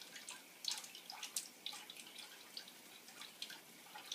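Faint, irregular dripping and small spatters of water from a running tap where a pet bird is bathing.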